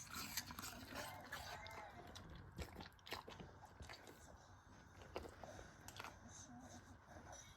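Golden retriever chewing pieces of pear, faint crisp crunches coming irregularly, more of them in the first few seconds.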